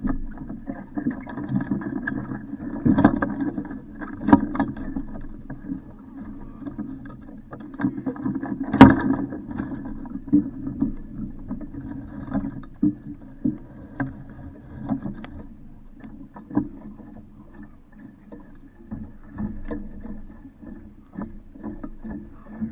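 Water sloshing and slapping against the hull of an Alcort Super Sailfish MK II board sailboat, with irregular knocks against the hull and one loud knock about nine seconds in.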